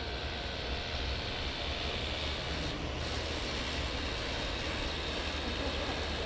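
Steady outdoor city background: a low, even hum of distant traffic.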